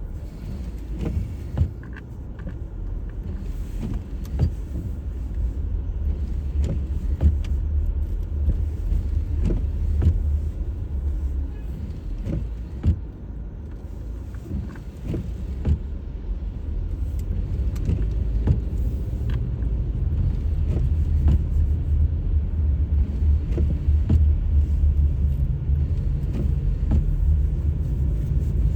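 Car driving on a snowy, icy road, heard from inside the cabin: a steady low road-and-engine rumble with scattered small knocks and clicks, slowly growing louder.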